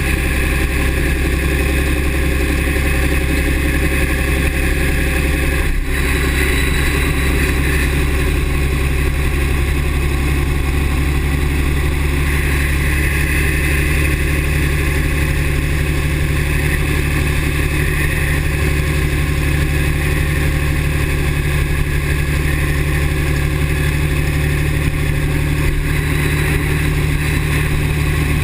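6.7 L Cummins turbo-diesel running steadily at an even speed, with no revving.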